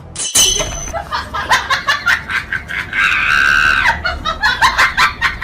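A person's voice screaming and laughing, with a string of sharp knocks throughout and one held scream near the middle.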